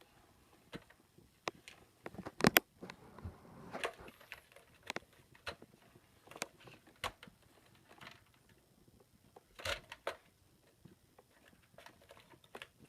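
Scattered clicks and knocks of a small chainsaw being handled and tinkered with, the loudest a sharp double click about two and a half seconds in; the saw is not running.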